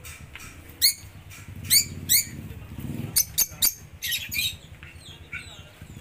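Lovebirds giving short, sharp, high chirps, about seven in quick succession, several of them in pairs, with a fainter one near the end.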